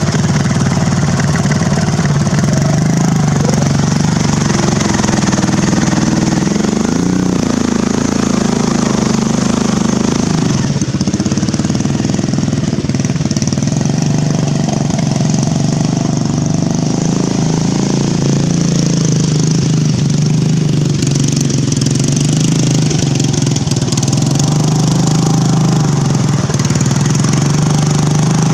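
Poulan Pro riding lawn mower's Briggs & Stratton engine running hard as the mower drives through deep mud. The note is steady, with a brief rise and fall in pitch about seven seconds in.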